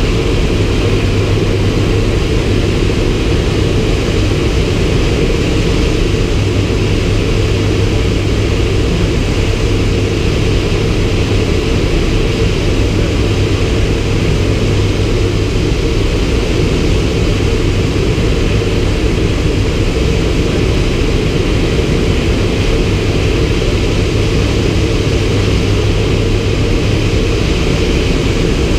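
Turboprop engine and propeller of a Thrush agricultural spray plane running steadily in flight, a constant low drone with no change in pitch.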